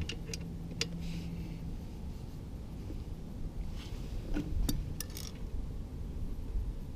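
Scattered light clicks and short rustles of small metal brackets and screws being handled, with a low steady hum in the first couple of seconds.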